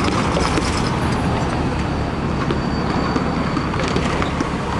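Steady street-traffic noise at a light-rail grade crossing, with a faint high steady tone from about a second in.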